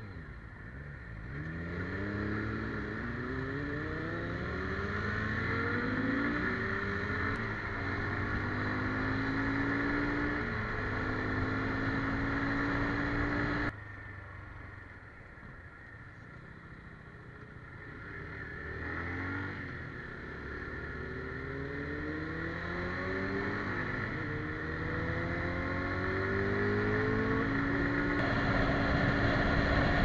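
SYM Wolf T2 motorcycle engine accelerating hard through the gears, its note rising and dropping back with each upshift. It drops suddenly about halfway, then climbs through several more upshifts and settles into steady cruising, with wind rushing over the microphone near the end.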